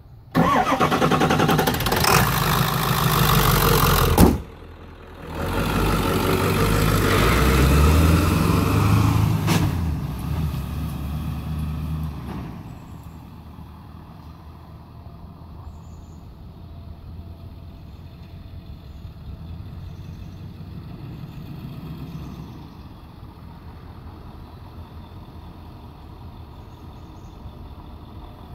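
Pickup truck engine running loud for about four seconds, then cutting off suddenly. It comes back with engine revs rising in pitch as the truck pulls away, and fades after about twelve seconds to a faint distant hum.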